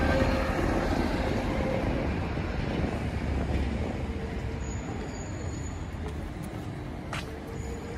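A city bus driving past close by: engine and tyre rumble, loudest at first and fading over the next few seconds into steady distant traffic noise.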